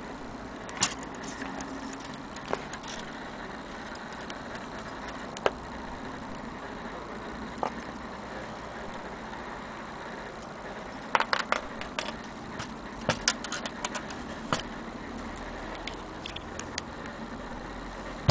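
Brass parts of an antique Kienzle Vienna wall clock being handled: scattered clicks and light metallic knocks at irregular intervals, with a quick run of them about two-thirds of the way through.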